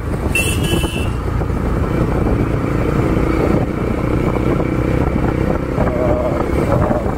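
Bajaj Pulsar NS200's single-cylinder engine running through a custom aftermarket exhaust, pulling steadily as the bike gathers speed at around 40 km/h. A brief high beep sounds about half a second in.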